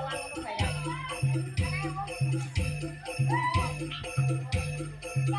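Music with a steady bass beat, about two beats a second, and jingling bells over it, with a few gliding melody notes.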